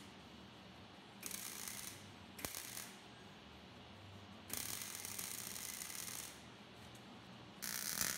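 MIG welder arc crackling in four short bursts of welding, with pauses between as the arc is struck and stopped; the longest burst lasts nearly two seconds.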